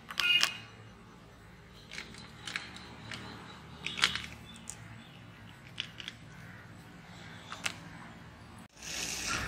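Sparse light clicks and taps as glasses of milkshake and chocolate pieces are handled on a tray, with a short ringing glass clink about half a second in.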